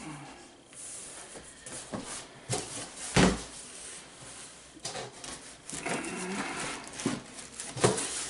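Cardboard box and styrofoam packing being handled: scattered light knocks and rustling, with one loud thump about three seconds in.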